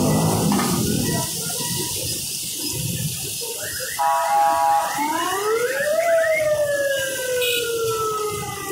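Katakat mixture of meat and oil sizzling on a large flat iron griddle, stirred with a metal spatula in the first second. About halfway in, a siren-like wailing tone comes in, rising for a second and then falling slowly over several seconds.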